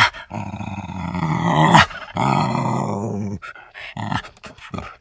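A dog growling: two long growls, the first growing louder at its end, then a run of short broken growls.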